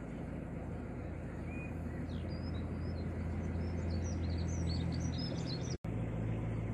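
Narrowboat's engine running steadily under way, a low hum, with small birds chirping over it from about two seconds in until about five. The sound drops out for an instant near the end.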